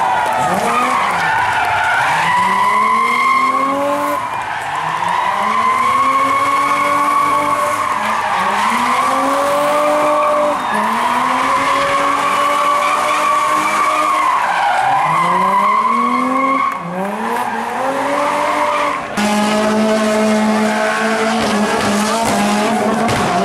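BMW rally car doing donuts: the engine revs climb and drop over and over, about every two seconds, over the squeal of spinning rear tyres. Near the end the engine settles into a steady held note.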